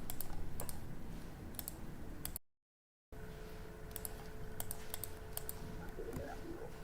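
Irregular sharp clicks, with the sound cutting out completely for under a second a little over two seconds in; near the end an aardvark's stomach growls faintly in short gurgling rumbles.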